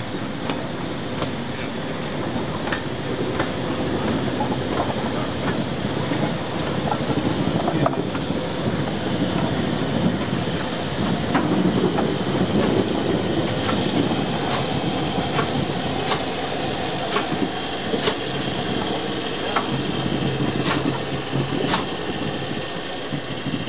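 A convoy of steam locomotives running light rolls past on the track, with wheels clicking irregularly over rail joints and a thin, high squeal of wheels on the rails.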